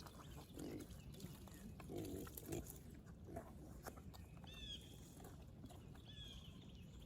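Pigs grunting faintly at feeding time, with scattered small knocks. A bird chirps twice, about four and a half seconds in and again near the end.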